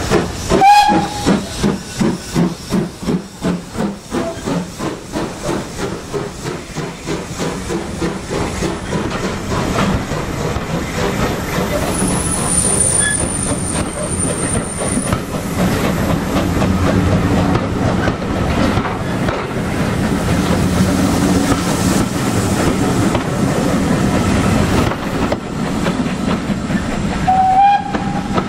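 BR Standard Class 2MT 2-6-0 steam locomotive No. 78022 gives a short whistle and pulls away with its train, its exhaust beats plain and regular for the first several seconds. The coaches then rumble past on the rails, with a thin high squeal for a few seconds midway, and another short whistle sounds near the end.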